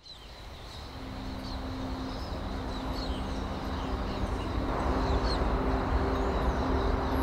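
Outdoor street ambience fading in: a steady rushing noise with small birds chirping again and again, and a faint low hum underneath.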